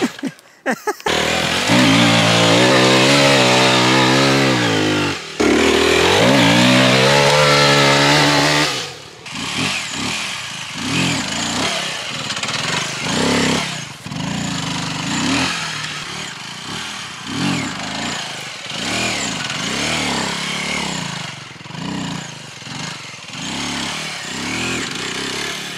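Aprilia RX 125 motorcycle engine revving hard through two long pulls that rise and fall in pitch over the first nine seconds. After that it runs quieter, with short rises and falls in revs about once a second or so.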